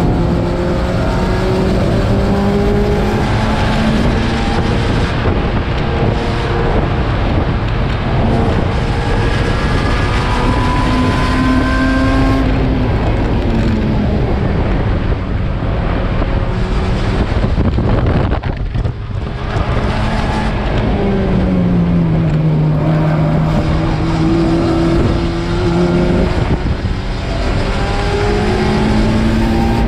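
Race car engine running hard around a circuit, its pitch climbing under acceleration and dropping back at gear changes and braking. There is a brief lift about two-thirds of the way through. Steady tyre and wind noise runs underneath.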